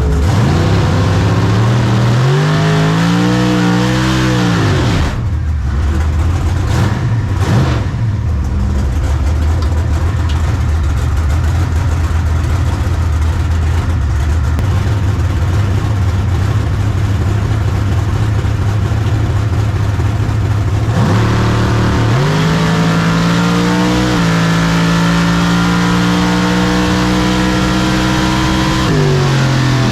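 Drag-racing engines at full throttle. A rev rises and falls in the first few seconds. A loud, even blast of engine noise follows and lasts about a quarter minute. Then an engine climbs in pitch again, with a sudden step partway through, and drops away near the end.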